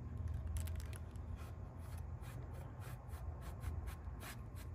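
Wooden stick ramming a potato down the PVC barrel of a potato gun, making irregular scraping and rubbing with small clicks. The potato is too tight a fit for the barrel.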